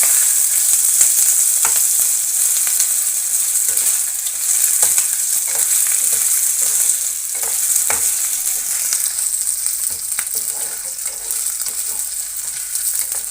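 Chicken pieces sizzling in hot oil in a pan, stirred with a spatula that knocks and scrapes against the pan every second or so. The sizzle eases slightly near the end.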